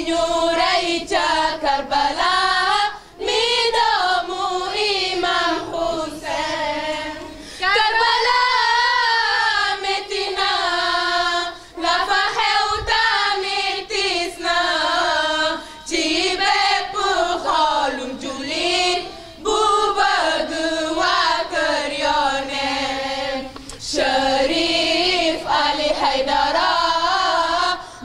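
A group of female and young voices singing a latmiya, a Shia mourning chant for Imam Hussein, together in repeated melodic phrases with brief breaks between them.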